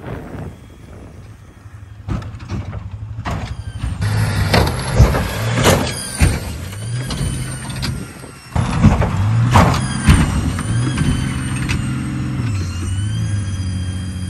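School bus engine running hard as the bus drives across the field, its pitch climbing and dropping several times, with a few sharp loud bangs from the bus in the middle.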